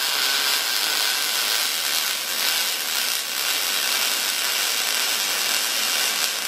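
Gas-shielded MIG welding arc from a Vulcan 220 welder, running steadily as a continuous bead is laid on thin steel square tubing.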